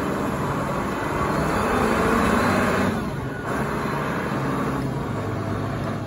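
Large Caterpillar forklift's engine running as the truck drives and turns, a steady engine note that dips briefly about halfway through.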